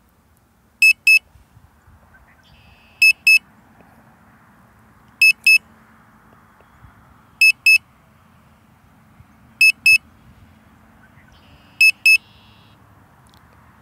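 Drone remote controller beeping an alert in short double beeps, about one pair every two seconds, while the drone flies its automatic return-to-home.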